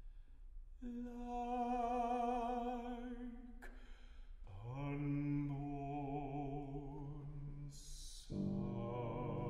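Classical baritone voice singing three slow, long-held notes with vibrato, the second lower and starting with a small upward slide. A short hiss comes just before the third note.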